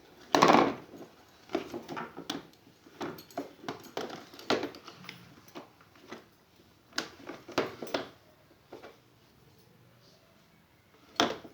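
Irregular short knocks and clacks in loose clusters, the loudest about half a second in, dying away to quiet for the last few seconds apart from one more knock near the end.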